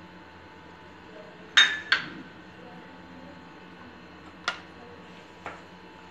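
A small glass bowl clinks twice in quick succession against the rim of a plastic mixing container as soaked tapioca pearls are tipped out of it, followed by two softer taps a few seconds later.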